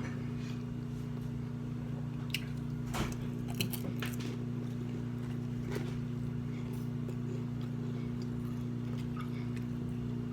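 A person chewing and biting food, with scattered soft clicks and crunches, most of them in the first half, over a steady low hum.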